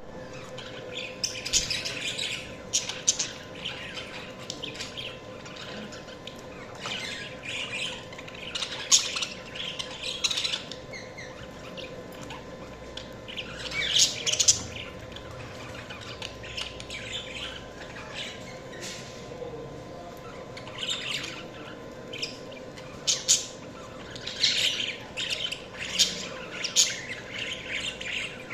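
Budgerigars chirping and chattering, with short, high-pitched calls and squawks coming in irregular clusters.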